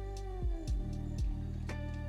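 Background music: sustained pitched tones that slowly slide downward, with several low thumps.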